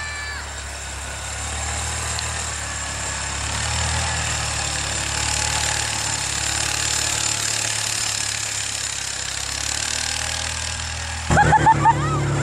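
Side-by-side utility vehicle's engine running steadily while towing a snow tube, with a broad hiss of snow and wind over it. Near the end the sound changes abruptly to a quick run of short, high, arching calls.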